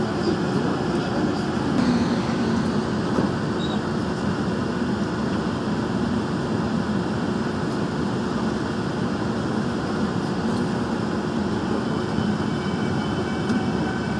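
Steady running noise of a Daejeon Metro Line 1 subway train heard from inside the car as it travels through a tunnel: wheels on rail and running gear.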